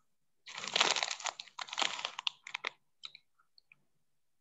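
Rapid rustling and clicking noise picked up over a video-call microphone, in dense clusters for about two seconds, then a few scattered faint clicks.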